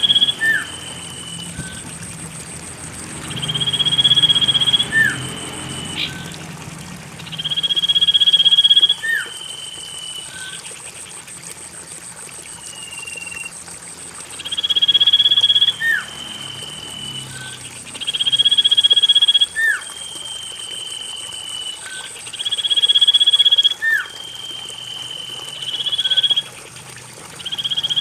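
Common iora (cipoh) whistling as a song lure: a long held whistle that swells and then drops to a lower note, repeated about every four seconds, each with a short upward flick, over a faint steady high tone.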